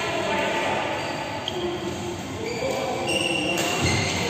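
Reverberant noise of a busy indoor badminton hall: distant players' voices mixed with short, high squeaks from the court floor, and a dull thud near the end.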